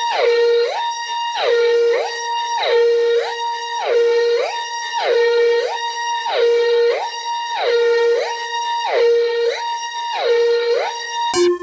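Electronic hi-lo emergency alert siren tone that alternates between a high and a low note about an octave apart, sliding between them about once a second. It cuts off abruptly near the end and gives way to a different alert tone.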